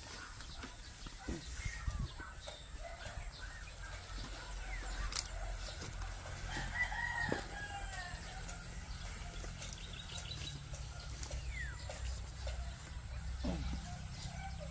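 A rooster crowing about six and a half seconds in, over steady outdoor background noise.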